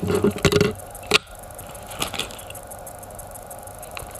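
Carbon fibre drone frame plates clattering against each other and the wooden tabletop, with one sharp click about a second in, then a few softer crinkles of a plastic parts bag being handled.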